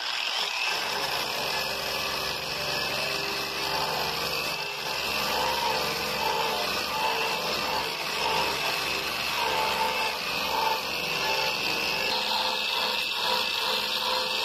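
Eastwood electric drum-type paint grinder running on its lowest speed setting, its abrasive drum stripping paint and rust off a car's rusted sheet-metal taillight bucket. The grinding starts abruptly and runs steadily as a hissing rasp over the motor's hum, rising and falling slightly as the tool is pressed and moved.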